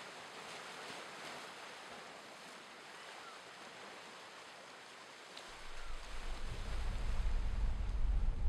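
Surf washing over rocks, a steady hiss of foam and water. About two-thirds of the way through, a deep low rumble rises underneath it and keeps growing louder.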